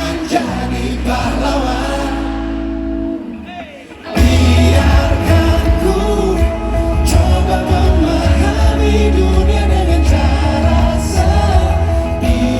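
Live band playing at a concert, with singing. A held chord fades away about three seconds in, then the full band comes in loud with heavy bass.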